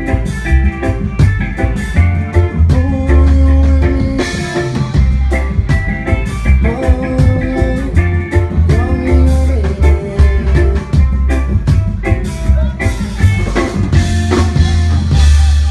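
Live reggae band playing, heard in the room. Electric guitar and a heavy, pulsing bass line run over a drum kit.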